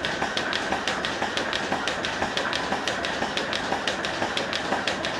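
Pipeline milking machine running: the pulsators click in a quick, regular rhythm over the steady hiss of the vacuum line.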